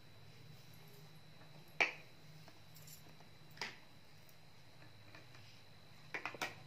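Hard plastic toy fruit pieces and a plastic toy knife clicking and tapping as they are handled on the table: one sharp click about two seconds in, a softer one a little later, and a quick run of clicks near the end, over a faint steady hum.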